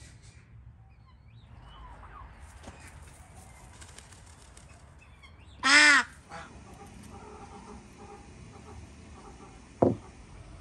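Poultry yard ambience with faint clucks and chirps, broken by one loud, nasal, honk-like call from a domestic fowl lasting about half a second, midway through. A short knock comes near the end.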